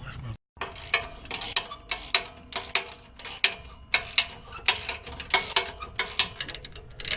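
Ratchet wrench clicking in quick repeated strokes, about two or three a second, tightening an exhaust pipe clamp to seal the leaking joint.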